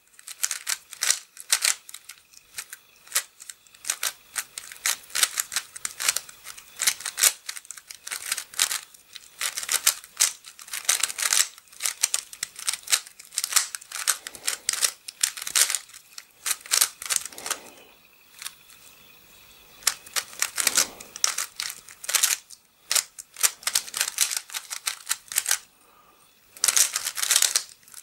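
Fisher Cube, a 3x3 shape-mod twisty puzzle, being turned at speed-solving pace: rapid runs of plastic clicking and clacking as the layers snap round. There is a pause of about two seconds roughly two-thirds of the way through and a shorter pause near the end.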